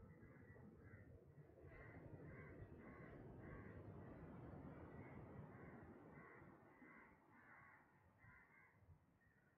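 Crows cawing in a long run of harsh calls, about two a second, with a short break midway, over a low steady rumble.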